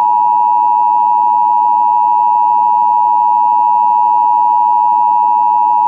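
Emergency Alert System two-tone attention signal: a loud, steady dual tone of two close pitches just under 1 kHz, the standard 853 Hz and 960 Hz pair, held without a break over a faint hiss.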